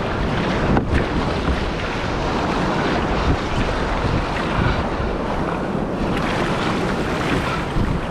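Breaking surf and whitewash rushing around a kayak, with wind buffeting the microphone: a loud, steady wash of noise throughout.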